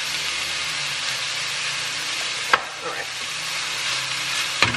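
Plant-based chicken pieces sizzling in a frying pan, with a spatula stirring and chopping at them. A sharp knock of the spatula against the pan comes about two and a half seconds in, and a couple more near the end.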